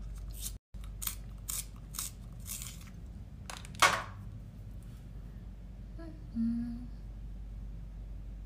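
Short, sharp scratchy handling noises as a makeup pencil is picked up and readied, the loudest about four seconds in, followed by a brief low hum.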